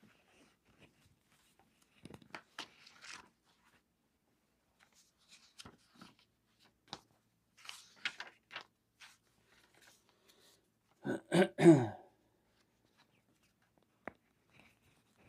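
Faint rustling of pages and small clicks at a lectern, then, about eleven seconds in, a man clears his throat loudly in two quick bursts. His voice is sore and still healing.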